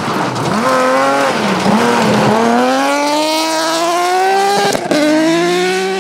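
BMW rally car engine revving hard under acceleration. The revs dip and climb through quick gear changes, then rise steadily for a couple of seconds, with a short sharp crack about five seconds in.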